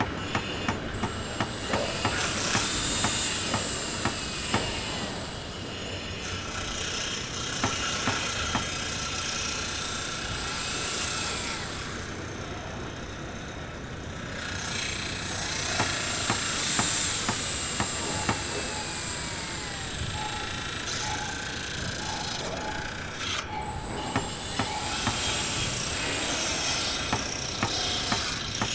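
Layered construction-site noise: runs of hammer blows at about two a second over a steady din of power tools. Saw and drill motors whine up and down in pitch throughout.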